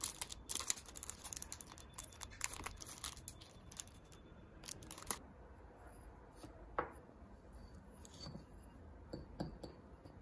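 Faint rustling and crinkling handling noise with sharp clicks. It is busy for the first five seconds, then thins to a few scattered clicks.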